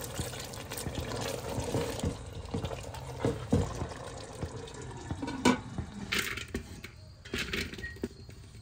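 Water poured into a metal pot of chicken and potato curry gravy, with stirring and a few sharp knocks against the pot, the loudest about five and a half seconds in.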